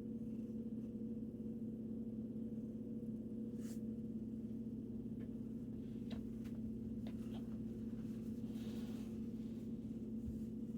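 A steady low hum, like a motor or appliance, with a few faint clicks partway through.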